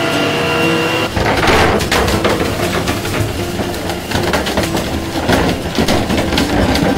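A steady machine hum with several held tones, then from about a second in a dense clatter of knocks and thuds: frozen tuna sliding and banging down a steel chute.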